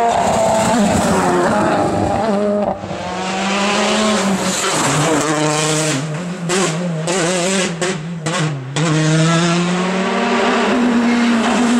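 Rally car engines revving hard at full throttle on a special stage, the pitch climbing and then dropping repeatedly as the drivers shift gear and lift for corners.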